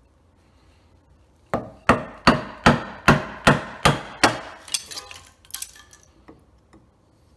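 Bench chisel driven into black walnut by about eight quick, regular blows on its handle, chopping out the waste of a joint notch. Lighter cracks and scraping follow as the chisel levers the loosened chips out.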